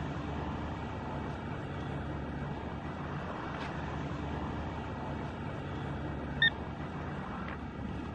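Steady traffic noise with car engines running, and one short high beep about six and a half seconds in.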